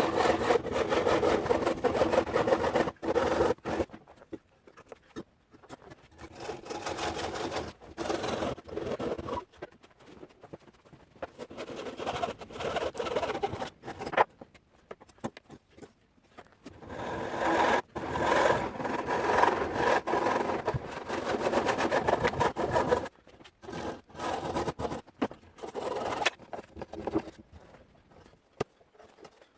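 Tenon saw cutting wood by hand for a small dovetail joint, in several bouts of back-and-forth strokes with pauses and a few sharp knocks between them.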